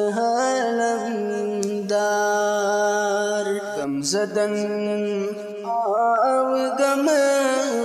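A man singing a Kashmiri naat, a devotional song in praise of the Prophet, in long held notes that slide from one pitch to the next.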